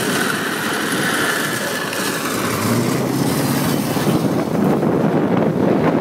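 A car driving along, heard from inside the car: steady engine and road noise. A steady higher hiss fades out over the first half, and a low engine note comes in about halfway through as the car pulls ahead.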